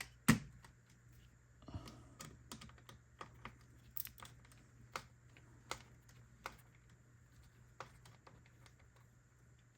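Small scattered clicks and taps of a screwdriver with a T8 Torx bit working the security screws out of the end of a light tube: one sharp click just after the start, a short scraping stretch about two seconds in, then single clicks about once a second.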